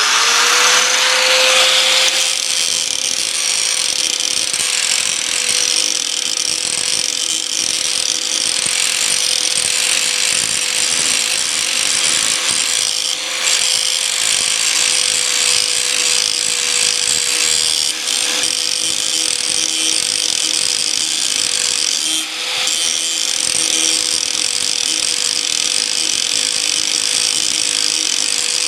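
An electric grinder sharpening a steel Bush Hog rotary-cutter blade: a steady motor whine over the hiss of the wheel grinding along the edge. The whine comes up to speed at the start, and the grinding dips briefly three times as the wheel is moved along the blade.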